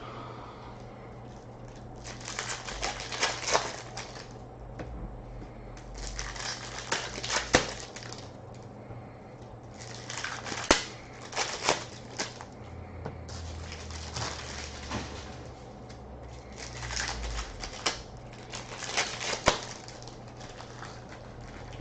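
Trading-card packs and their wrappers being handled and torn open, heard as bursts of crackly, clicking rustle every few seconds.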